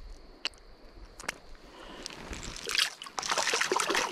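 A couple of light clicks, then splashing and sloshing in shallow creek water as a hand-held trout is let go into the stream. The splashing starts a little over halfway through.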